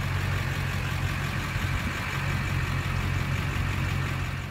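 2003 Duramax 6.6 V8 turbodiesel engine idling steadily, an even low rumble.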